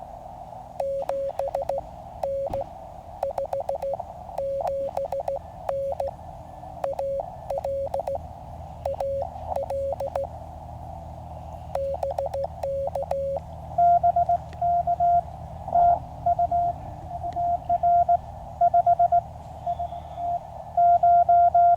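Morse code (CW) from a QCX mini QRP transceiver. A received station keys at a low, steady pitch inside the receiver's hiss with sharp clicks. About 14 seconds in it gives way to a louder, higher-pitched sidetone sending the reply.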